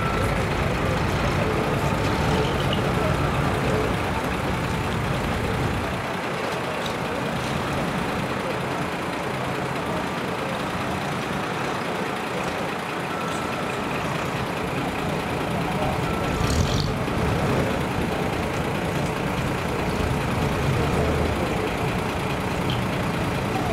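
Large truck's diesel engine running as the truck rolls slowly, a steady low rumble, with a short hiss about two-thirds of the way through.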